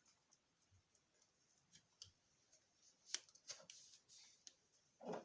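Faint clicks and rustling of a thin cable being cut and handled, with one sharp click about three seconds in.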